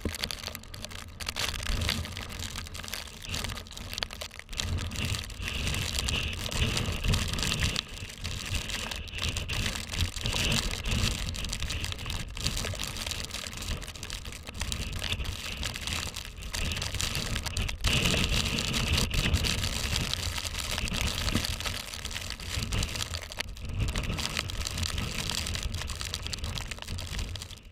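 Blizzard wind blowing hard across the microphone, rising and falling in gusts, with a low rumble of wind buffeting and a rough crackle of blown snow.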